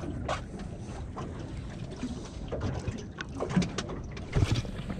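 Sea lapping against a small aluminium boat's hull, with wind on the microphone and scattered light clicks and knocks from handling a spinning rod and reel. A louder cluster of knocks comes near the end.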